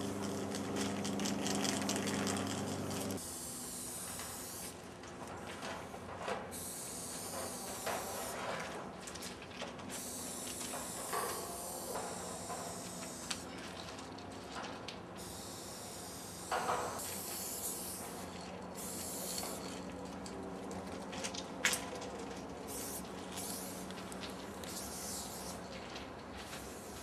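Aerosol spray paint cans hissing in bursts of one to several seconds, with short pauses and a few sharp clicks in between. A steady low hum lies under the first three seconds and stops abruptly.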